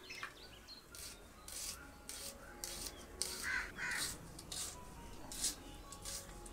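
Knife slicing red onion held in the hand: crisp cutting strokes at about two a second. A crow caws twice about midway.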